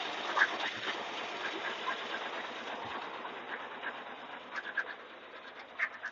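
Chevy C1500 pickup engine idling with a light, irregular ticking rattle, which the owner takes for a leaking exhaust manifold gasket. The sound slowly gets quieter.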